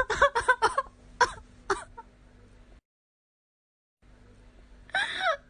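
A run of short, sharp vocal sounds from a person's voice over the first two seconds. The audio then drops to dead silence for about a second where the clip cuts, and a brief falling vocal sound comes near the end.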